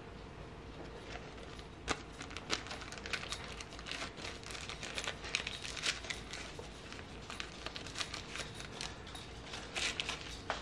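Clear plastic parts bags from a brake rebuild kit crinkling and rustling as they are handled and sorted through, with many small, irregular light clicks.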